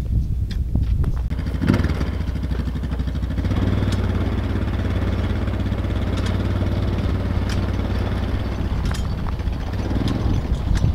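Riding lawn tractor's small engine running steadily as it pulls a loaded trailer, with occasional clicks and knocks.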